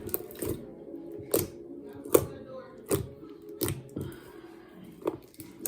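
Slime being squeezed and pressed by hand, giving sharp sticky pops and clicks a little faster than once a second.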